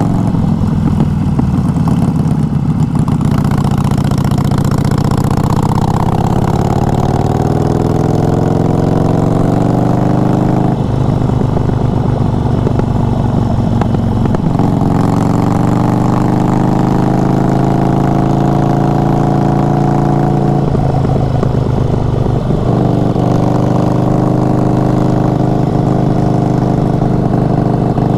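Harley-Davidson Evolution V-twin motorcycle engine under way, pulling through the gears. The engine note climbs slowly between shifts, with several gear changes along the way.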